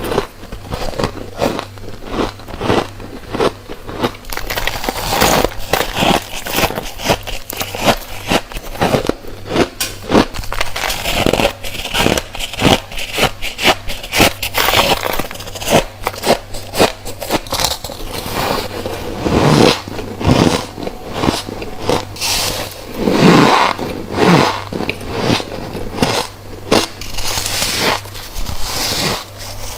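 Close-miked biting and crunching of refrozen white freezer frost: a fast, continuous run of crisp crunches, with a few heavier bites about two-thirds of the way through.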